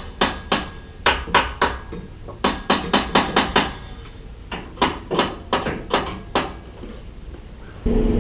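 Sharp metallic strikes, about twenty of them in quick bursts, like a hammer on metal. Shortly before the end a truck engine is suddenly heard running steadily.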